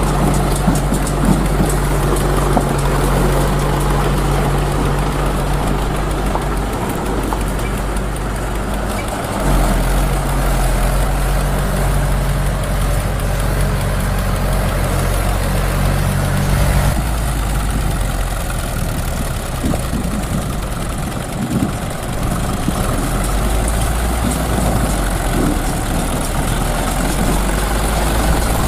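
Low, steady tractor engine sound effect running at idle. The engine note jumps abruptly to a new setting about nine seconds in and again about seventeen seconds in.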